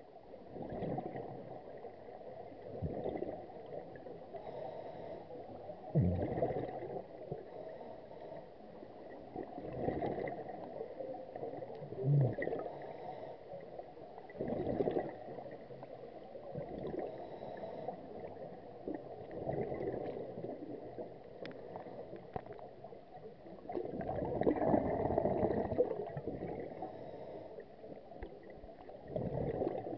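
Scuba regulator bubbles heard underwater: divers' exhaled air gurgling out in bursts every few seconds, with a longer burst near the end, over a low steady hiss.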